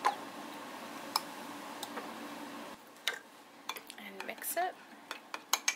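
Metal spoon clinking and scraping against a glass mason jar while stirring oats, almond milk and maple syrup: a few light taps at first, then quicker clinks near the end.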